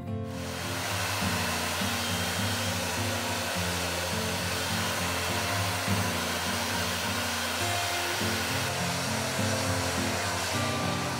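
Handheld hair dryer blowing steadily on wet hair, switched on right at the start, over soft background music.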